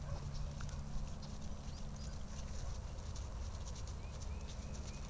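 Hoofbeats of a Quarter Horse mare trotting on grass under a rider: a steady run of soft hoof strikes over a low rumble.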